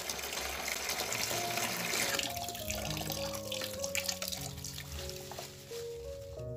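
Tap water running and splashing into a large basin of water, over background music. The splashing dies down near the end.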